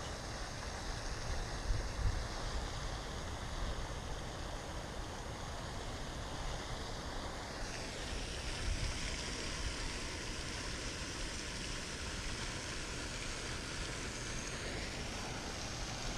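Steady outdoor noise: wind buffeting the microphone in low gusts, over an even hiss.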